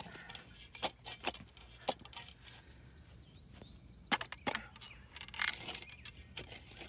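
Steel shovel blade chopping into hard, dry clay soil: a series of sharp, irregular thunks with a longer scrape of the blade through the dirt about two-thirds of the way in.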